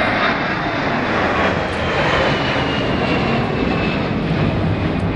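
Jet engines of a McDonnell Douglas MD-11 freighter running as it moves along the runway: a steady loud noise with a high whine that slowly falls in pitch.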